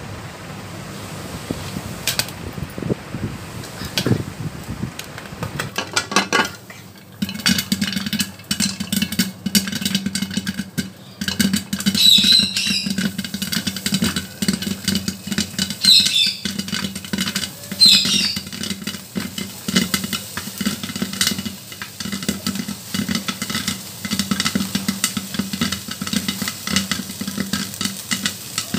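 Popcorn kernels popping in hot oil and butter inside a closed aluminium pressure cooker, its lid on without gasket or whistle. The pops start scattered and turn dense and rapid about seven seconds in, with three brief squeaks in the middle stretch.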